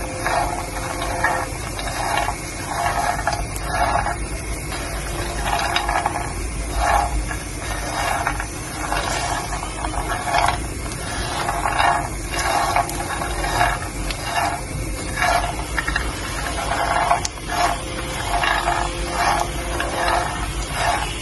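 Peanuts being stirred, rattling and scraping in repeated strokes about one to two times a second over a steady hiss.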